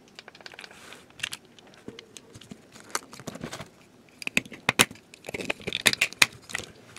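Plastic clicks and rattles as a Trackmaster James toy train's tender shell is handled and fitted back together. The clicks are scattered at first and come thicker and sharper from about four seconds in.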